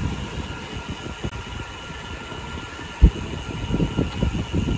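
Wind buffeting the microphone of a bicycle rider coasting fast downhill after a steep climb, with a faint steady hum underneath. There is a sharp bump about three seconds in.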